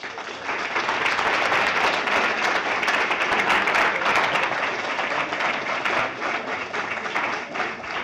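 Audience applauding: many hands clapping, building quickly over the first second and then holding steady.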